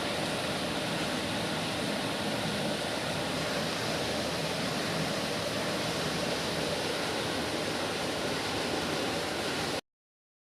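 Steady rushing background noise, even and unchanging, that cuts off abruptly near the end.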